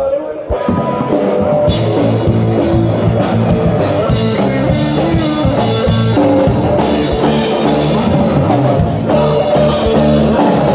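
Street band playing rock music live, with a drum kit and guitars; it comes in about half a second in and the drums kick in fully a second later.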